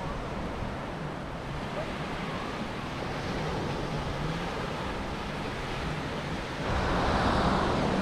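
Small sea waves breaking and washing up on a sandy shore, a steady surf that gets louder near the end as a wave rolls in.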